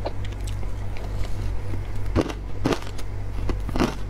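Close-miked crunching of matcha ice being bitten and chewed: a string of sharp crunches, strongest about two seconds in and near the end, over a steady low hum.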